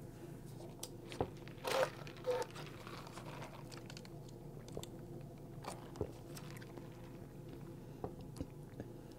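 Soda sipped through a straw, close to the microphone: two short slurps about two seconds in, then quieter mouth sounds and a few light clicks as the plastic cup is handled.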